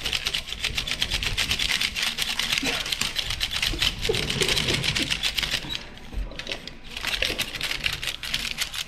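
Rapid plastic clicking and clattering of two Akedo battle controllers being button-mashed, the figures' arms punching back and forth, with a brief lull about six seconds in.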